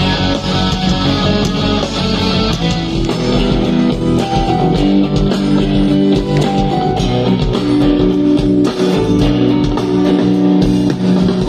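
Live rock band playing a guitar-led instrumental passage between sung lines, loud and continuous, recorded on a smartphone.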